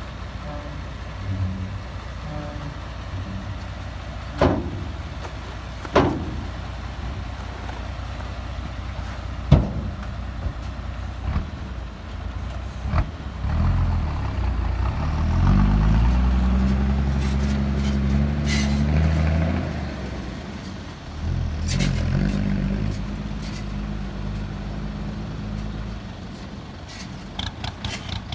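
Ten-wheel Mitsubishi Fuso dump truck's diesel engine running while the tailgate bangs loudly three times, about 4.5, 6 and 9.5 seconds in. Later the engine revs up as the truck pulls away, with a few short air hisses.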